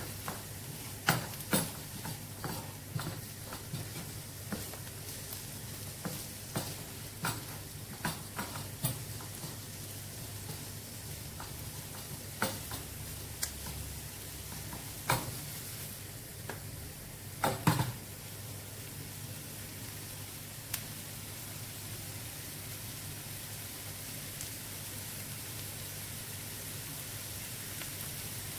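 Chopped onions sizzling in a frying pan as they fry toward golden. In roughly the first eighteen seconds a wooden spoon scrapes and knocks against the pan as they are stirred; after that only the steady sizzle remains.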